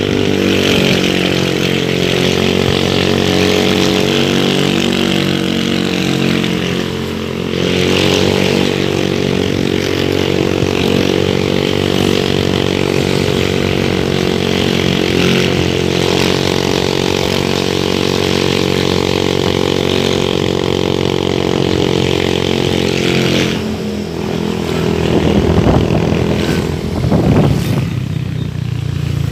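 Motorcycle engine running steadily while riding along a road. The note dips briefly about seven seconds in and shifts again near the middle, then turns uneven over the last several seconds.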